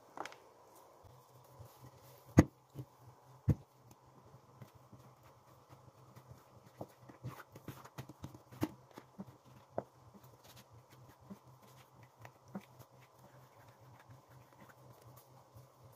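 Food-preparation handling noises: two sharp knocks in the first few seconds, then scattered soft taps and thuds as bread dough is portioned and shaped into balls on a silicone mat, over a steady low hum.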